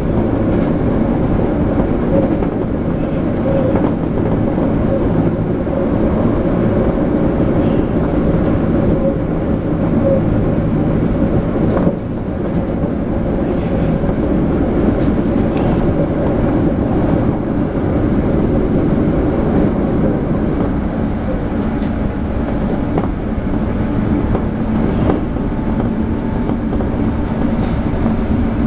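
Running noise of a Toei 5300 series commuter train heard inside the passenger car: a steady rumble of wheels on rail and traction equipment, with a faint steady tone early on and a brief dip in loudness about twelve seconds in.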